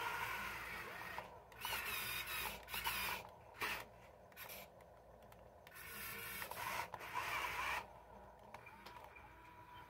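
Radio-controlled toy wheel loader's small electric motors and plastic gearboxes whirring in several stop-start bursts as it works its bucket in sand.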